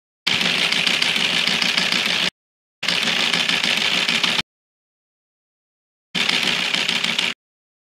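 Typing sound effect of rapid keystroke clatter in three bursts, each cutting off dead: the first about 2 s long, the second about 1.5 s, the third about 1 s near the end.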